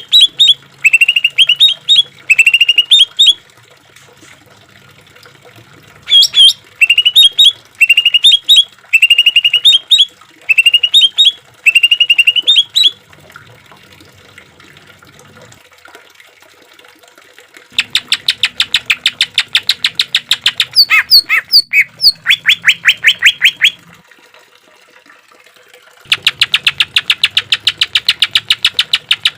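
Green leafbird (cucak ijo) singing: quick phrases of short, rising whistled notes repeated with short gaps, then, past the middle, long rapid-fire runs of stuttering notes, several a second, the "tembakan" bursts prized in a competition bird.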